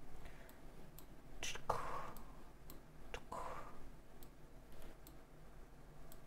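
Computer mouse clicking, about nine light clicks at uneven intervals. There are two short breathy noises near the middle.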